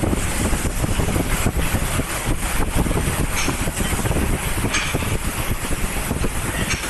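Double-station fiber laser welding machine running: steady, dense machine noise with a constant fine crackle.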